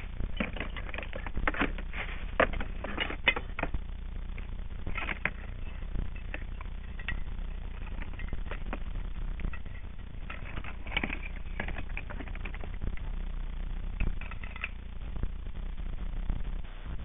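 Irregular clicks, knocks and clatter of objects being handled and shifted in a plastic storage box, over a steady low rumble.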